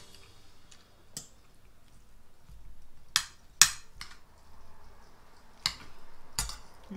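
Spoon and fork clicking against ceramic plates during a meal: about six sharp, separate clinks, the loudest a little past the middle.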